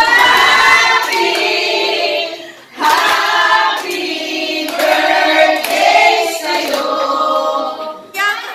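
A group of women singing together in unison, with hands clapping along. The singing breaks off briefly about three seconds in, then carries on.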